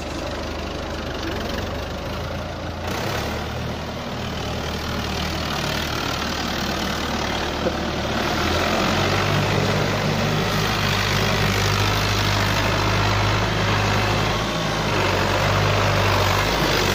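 Fiat 640 tractor's diesel engine running steadily, then picking up to higher revs and louder about halfway through and holding there.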